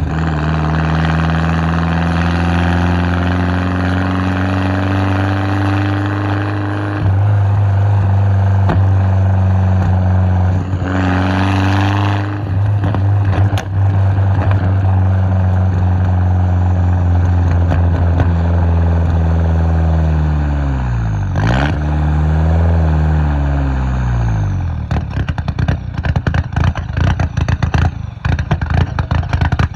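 Mk4 Jetta 1.8T turbocharged four-cylinder engine running at idle, its pitch wandering slightly, with a hiss rising partway through; the uploader puts this down to a large vacuum leak at idle. The pitch dips about two-thirds of the way in, and near the end the sound breaks up into irregular, choppy pulses.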